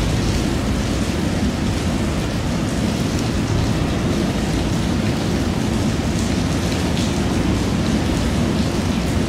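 Heavy rain hissing steadily, over the low, even rumble of a long freight train of empty red open box wagons rolling past behind a Class 66 diesel locomotive.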